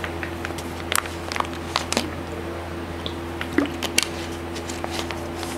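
Room tone of a small room: a steady low hum with scattered light clicks and handling noises, loudest about one, two and four seconds in.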